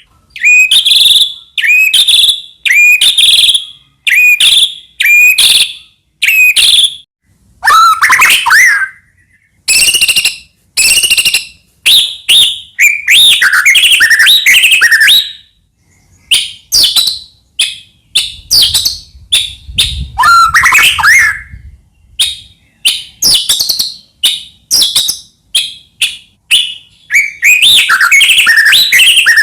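White-rumped shama (murai batu) singing loud, varied whistled phrases one after another, each about a second long with short pauses between, running into a dense stretch of song near the end.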